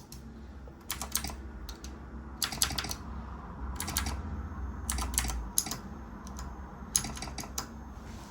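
Keys on a mechanical keyboard with clicky Cherry MX Blue switches being pressed in short, irregular clusters of clicks.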